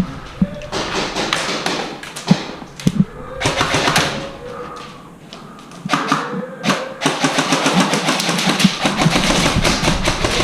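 Scattered thuds and taps that turn into a dense run of rapid clicks and knocks in the last few seconds.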